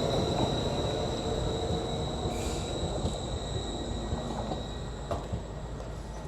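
Train rumbling along the track as it moves away, the sound slowly fading, with a steady high-pitched whine over it.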